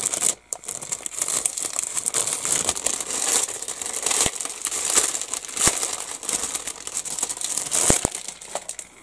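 Crinkling of a plastic bag as a plastic model kit sprue is handled and turned over in it, with a few sharp clicks of the plastic parts knocking, the last one doubled near the end.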